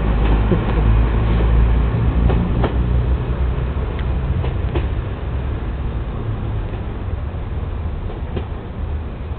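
Class 121 single-car diesel railcar pulling away, its low engine and running rumble slowly fading as it draws off, with a few sharp clicks along the way.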